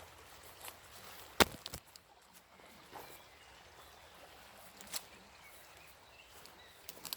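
Scattered footsteps on a hiking trail: a few sharp, uneven knocks, the loudest about a second and a half in, over a faint steady outdoor hiss.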